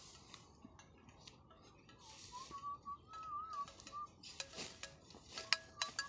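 A faint, thin wavering whistle about two seconds in, lasting about two seconds, followed from about four seconds by a run of sharp metallic clinks, some of them ringing briefly.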